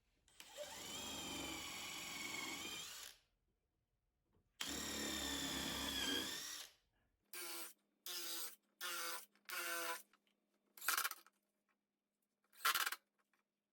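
Power drill driving screws into plywood: two runs of about two seconds each with the motor pitch wavering, then four short trigger bursts, followed by two brief sharp clicks.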